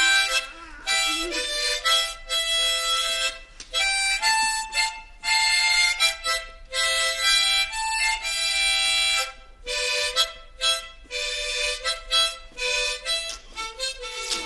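A harmonica played solo: a simple tune of held, chord-like notes, each lasting about half a second to a second, with short breaks between them as the player breathes in and out.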